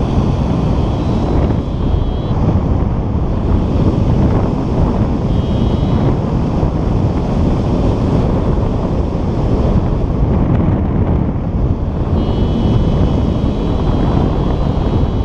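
Airflow of a paraglider in flight buffeting the camera microphone: a loud, steady rumbling wind noise. A faint, high, thin tone comes and goes three times, near the start, around the middle and near the end.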